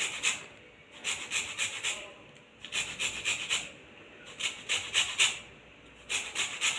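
Green lime peel being rubbed across a hand grater, in short runs of quick rasping strokes with brief pauses between them.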